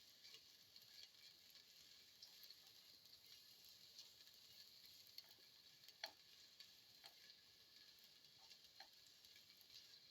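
Faint sizzle of chopped shallots frying in a little hot oil in a pan, with scattered small crackles and pops, one sharper pop about six seconds in.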